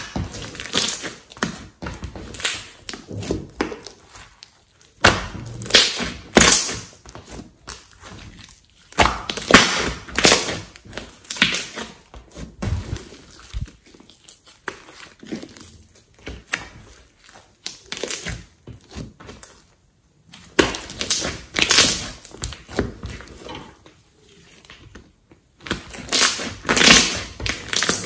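Hands squeezing and pressing a large blob of slime, making squishing and clicking sounds in irregular bursts of a second or so, with short pauses between them.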